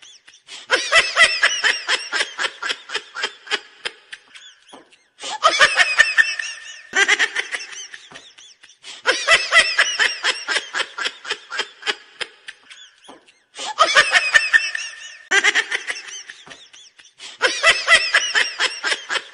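A group of people laughing hard in a small room, in about seven bursts that each start abruptly and trail off.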